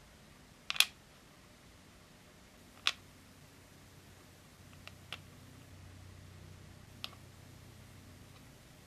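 Small hard plastic miniature food pieces clicking and tapping as they are handled and set down on a tiny plastic tray: a few sharp clicks spaced out over several seconds, the first the loudest.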